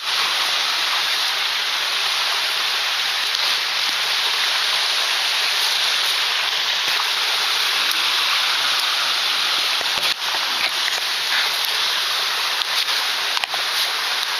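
Steady rushing of water pouring down a mountain-stream cascade, with a few faint knocks about ten seconds in and near the end.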